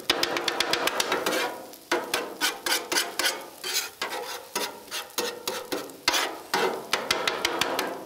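A metal spatula scraping and clacking against a flat-top griddle in quick repeated strokes as it chops and scrambles eggs, with the eggs sizzling as they fry on the hot steel.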